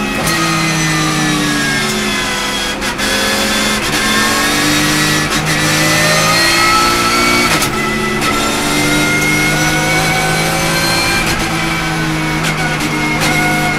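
Porsche 911 race car's flat-six engine heard from inside the cabin. Its pitch falls under braking with quick downshifts in the first few seconds, then climbs as it accelerates out of the corner, with an upshift about halfway through. A steady rush of wind and tyre noise runs underneath.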